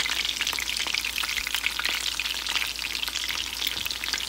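Cornflour-and-flour-coated boneless chicken thigh pieces frying in hot oil in a pan: a steady, dense sizzle and crackle.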